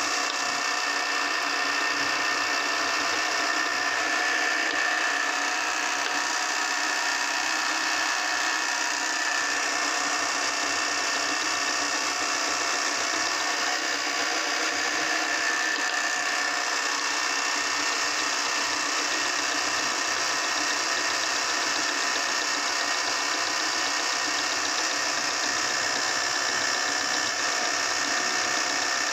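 Motor-driven meat grinder running steadily: a constant mechanical hum with a few steady whining tones as it forces soft jelly, gum and rice cake through its cutting plate.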